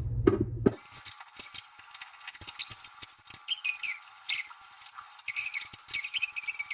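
Small metal lock parts being handled: light clicks with short squeaky scraping as pins and parts of a Mul-T-Lock Classic Pro cylinder are worked during disassembly.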